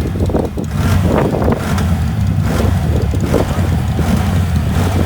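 An ATV engine running steadily, with wind buffeting the microphone.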